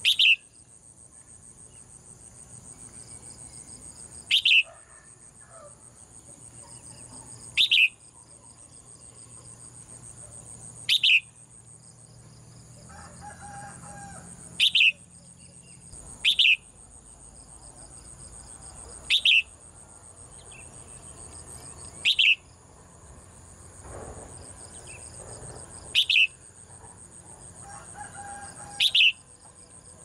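Red-whiskered bulbul giving a short, sharp downward-sweeping call about every three seconds, ten calls in all, over a steady high buzz of insects.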